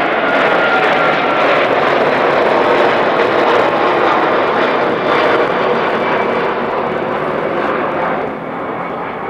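Airbus A330-300 twin-engine jet airliner passing low overhead: a loud, steady jet engine roar with a faint falling whine early on, easing off a little near the end.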